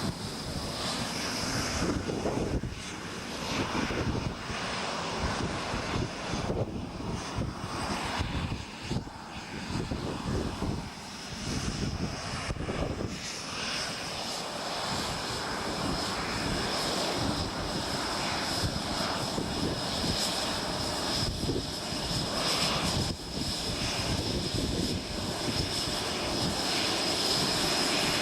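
Tornado GR4 jets with their RB199 turbofan engines running on the ground: a continuous rushing jet noise with a steady high whine, uneven in the first half and steadier and louder from about halfway on.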